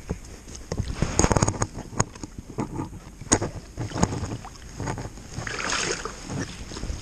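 Water splashing and irregular knocks and thumps as a freshly hooked catfish is landed from the river and handled, with a dense flurry of them about a second in.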